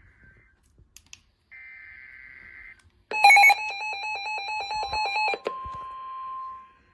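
Emergency Alert System alert beginning: about a second and a half in, a short buzzy data burst of the digital header. From about three seconds in comes a loud, rapidly pulsing electronic alarm tone. About five and a half seconds in this gives way to a steady single-pitch alert tone, the signal that a warning message is about to be read.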